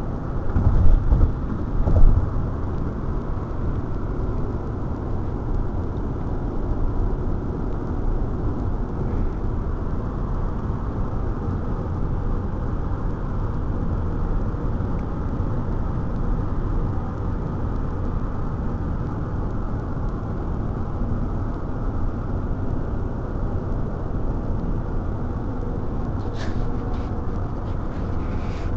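Steady road noise inside a Subaru car's cabin at highway speed: a low rumble of tyres and wind. Two loud low thumps come about one and two seconds in.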